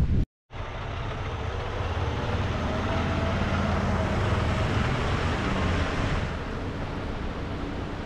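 Tractor-trailer's engine running close by in street traffic, a steady low rumble that eases a little about six seconds in. The sound drops out completely for half a second near the start.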